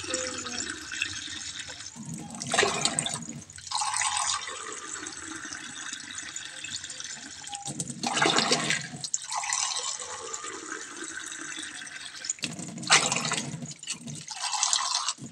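Water poured in a stream into an aluminium pressure cooker already holding water and beans, splashing and gurgling, and swelling louder three times as the pour comes heavier.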